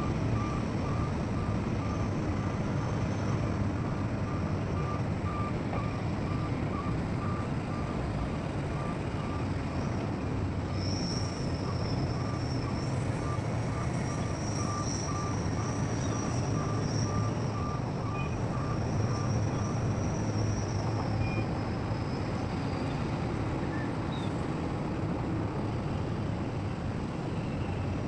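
Heavy diesel machinery running steadily, with a reversing alarm beeping about twice a second until it stops about 20 s in. A high thin whine joins in from about 11 s to about 21 s.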